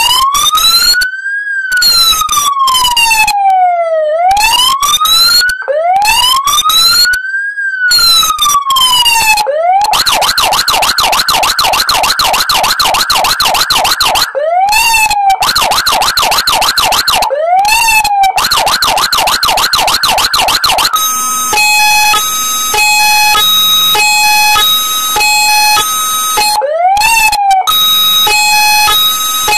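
Code 3 Z3 electronic siren sounding through its siren speaker and switched through its tones. First comes a slow rising and falling wail. Then a fast yelp, broken by short rising-and-falling chirps, and from about two-thirds in a tone that steps back and forth between steady pitches.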